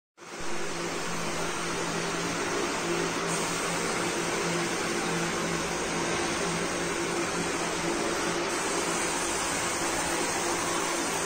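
Steady mechanical whirring noise with a low hum, starting abruptly.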